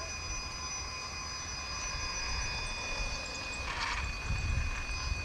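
Losi Rock Rey RC truck's brushless electric motor whining in steady high tones as it is driven slowly with a child riding on it, over a low rumble of its tyres rolling on concrete.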